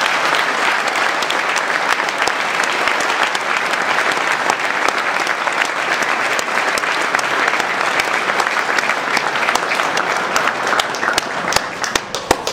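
Audience applauding, a dense run of clapping that thins to a few scattered claps near the end.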